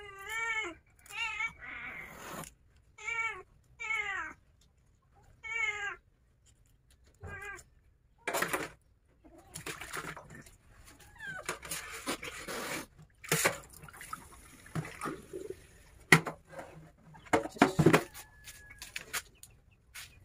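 Domestic cat meowing over and over, six or seven short wavering calls in the first half. Later come irregular clatters and splashes of plastic containers and water in a stainless-steel sink, the loudest knocks near the end.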